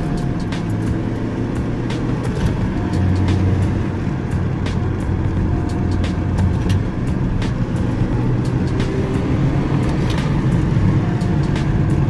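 Scion car being driven: steady engine and road rumble heard inside the cabin, with scattered light clicks and knocks at irregular times.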